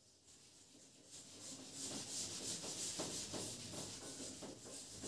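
Quick repeated rubbing strokes against a writing board, faint at first and louder from about two seconds in.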